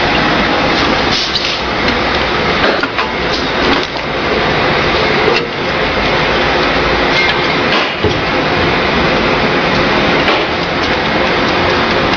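Steady machine running noise, with scattered clicks and knocks as the opened Xsheen XH A3+ business card cutter's mechanism is handled.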